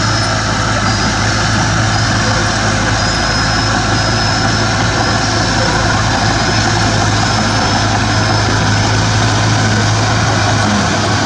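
Heavy diesel engine of earthmoving machinery running steadily under a constant deep hum, with no change in speed.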